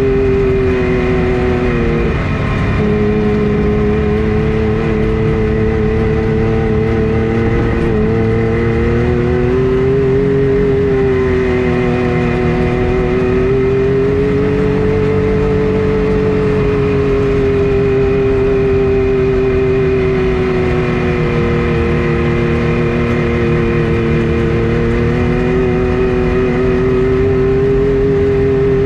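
A vehicle engine running at a steady cruising speed, its pitch drifting slowly up and down, with a brief drop in pitch about two seconds in.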